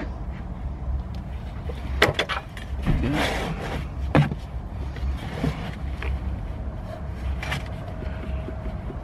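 A few sharp clicks and a short scrape of the plastic clips and fittings on a BMW E60's inline diesel fuel filter as it is worked loose and pulled off its bracket, over a steady low hum.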